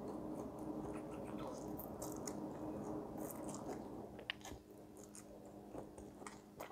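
A person eating chewy fried instant noodles: soft, wet slurping and chewing, with a few short sharp clicks. A steady low hum runs underneath.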